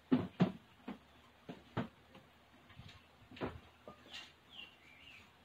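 Light kitchen clatter: a string of sharp clicks and knocks from dishes and utensils being handled, irregularly spaced and loudest in the first half second, with a faint high chirp near the end.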